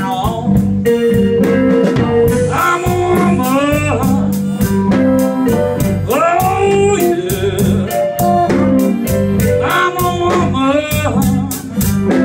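Live blues band playing: electric guitar over bass and drums, with a steady cymbal beat and a singing voice.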